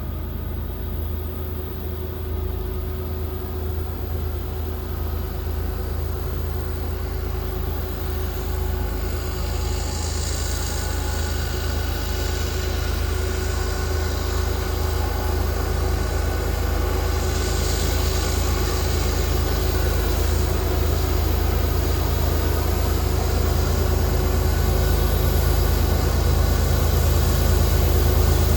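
Diesel freight locomotives working hard under load as they pull a heavy train up a grade: a deep, steady engine drone with a constant hum above it, growing steadily louder as they approach.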